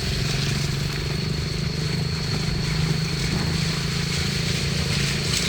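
Toyota Avanza's engine running steadily at low revs, an even hum with no revving, with a thin steady high whine above it.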